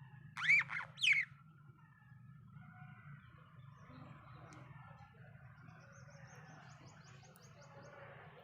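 Budgerigars calling: two loud, sharp squawks about half a second apart near the start, then soft chatter and a quick run of faint high chirps near the end. A steady low hum runs underneath.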